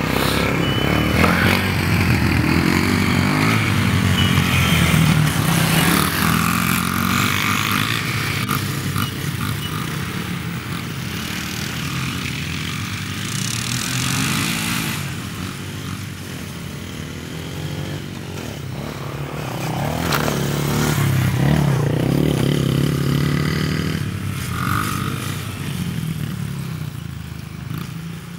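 Small kids' dirt bike engine running, its pitch rising and falling with the throttle and its loudness swelling and fading as the bike rides near and away, dropping off toward the end.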